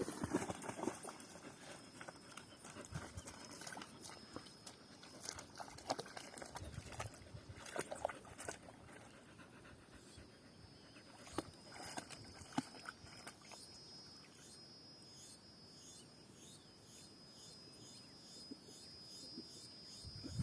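Dog panting faintly, with scattered small knocks. About halfway in, a faint steady high tone with a quick pulsing starts and runs on.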